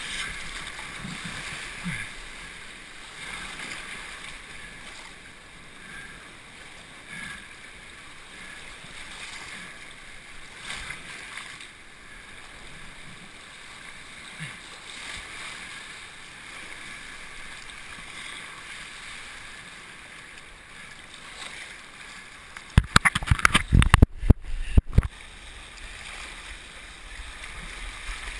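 Rushing river rapids, muffled as heard through a GoPro's waterproof housing, with the board and camera awash in the current. About 23 seconds in, a couple of seconds of loud splashing and knocking as water slaps against the housing.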